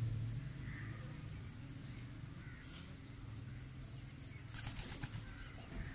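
Domestic pigeons moving about and calling softly, with a short cluster of sharp clicks about three-quarters of the way through.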